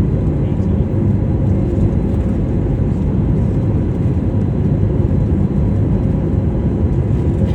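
Steady low rumble of jet engines and rushing air inside a passenger airliner's cabin.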